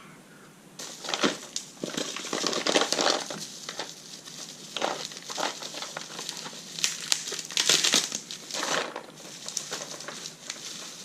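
Packaging being handled and unwrapped: irregular crinkling and rustling, starting about a second in and going on in uneven bursts.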